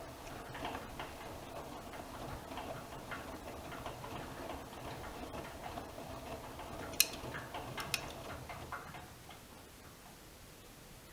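AEG Öko-Lavamat Lavalogic 1600 washing machine in its wash phase: the drum turns with a motor hum and light irregular tapping and clicking. Two sharp clicks come near the end, and then the drum stops and the sound falls to a faint hiss.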